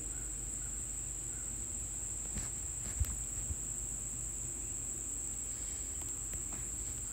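Pencil point working through a paper template into a foam printing plate, with a few faint clicks and a soft knock about three seconds in. Under it runs a steady high-pitched whine.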